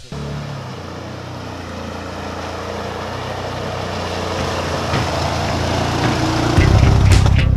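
Yamaha Grizzly 700 ATV's single-cylinder engine running on the move, growing steadily louder as the quad comes closer. Loud rock music cuts back in near the end.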